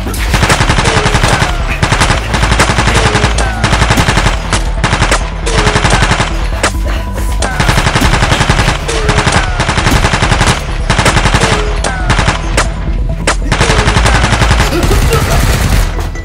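Rapid automatic gunfire in bursts with brief pauses: a machine-gun sound effect dubbed over the firing of Nerf blasters.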